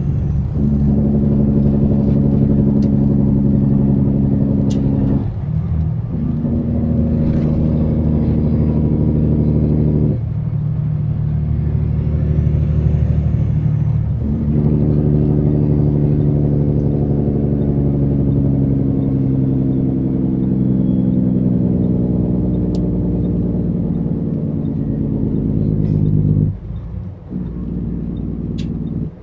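Semi-truck diesel engine running under load, heard from inside the cab, with a steady drone. The engine note drops out briefly four times and comes back at a slightly different pitch, as at gear changes.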